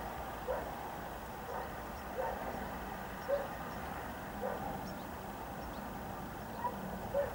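Faint dog barking: single short barks at irregular intervals, roughly one every second or two, over a low steady background hum.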